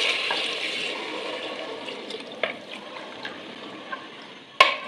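About a litre of water poured into a pressure cooker pot of fried urad daal, splashing loudest at first and fading away over the next few seconds. A ladle stirs the watery daal, with a sharp knock near the end.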